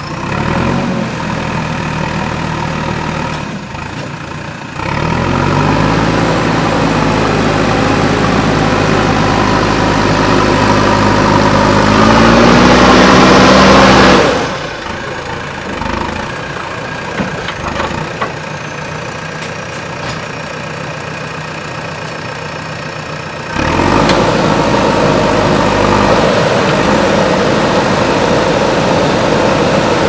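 JCB 3DX backhoe loader's diesel engine working as the machine drives up a heap of loose soil. The engine steps up about five seconds in and rises in pitch, then drops away suddenly near the middle. It runs quieter for a while, then picks up louder again near the end.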